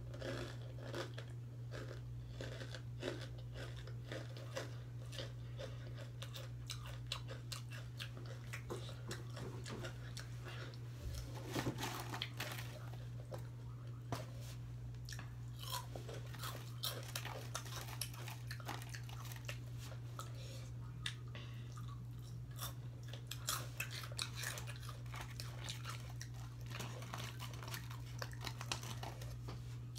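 Crunchy hot chips being chewed: a continuous run of small crackling crunches, with a few louder bites.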